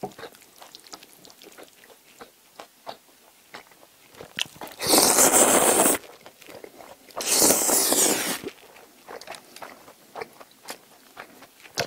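Tomato spaghetti being slurped up twice, each loud slurp about a second long, near the middle of the stretch. Between them come soft chewing and small mouth clicks.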